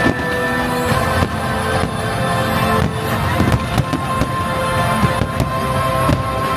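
Aerial fireworks bursting over a musical soundtrack, with a sharp bang about every second.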